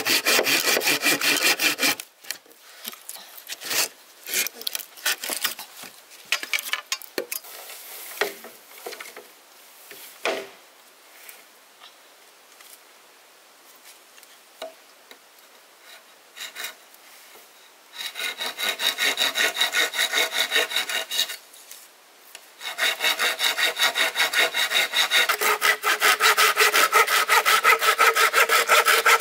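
Hand saw cutting through wood in quick, even strokes. It saws in three bouts: at the start, for a few seconds just past halfway, and again from about three-quarters through. Between the bouts there are scattered knocks.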